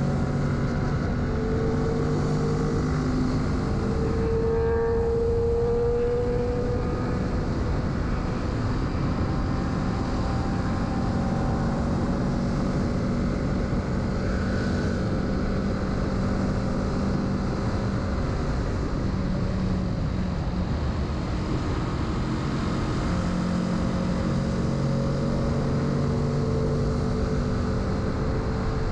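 Kawasaki Z650's parallel-twin engine running steadily as the motorcycle rides along, its note rising slightly about five seconds in.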